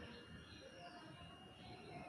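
Near silence: faint outdoor background with distant voices; no sneeze or nose-blow.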